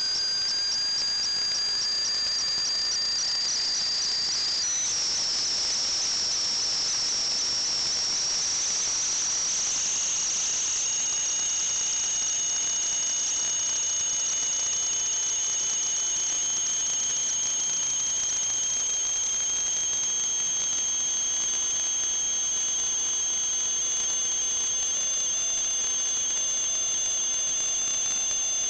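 Steady, loud hiss with high-pitched whistling tones through it; the whistle jumps in pitch a few seconds in and gains a lower second tone about a third of the way through.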